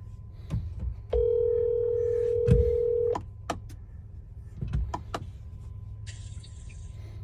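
A single steady electronic beep about two seconds long, amid a few scattered clicks.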